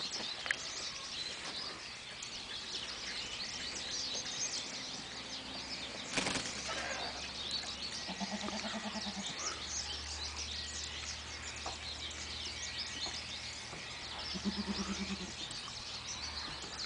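Small birds chirping continuously, with a goat bleating twice in a trembling voice, about 8 seconds in and again near the end, each call about a second long.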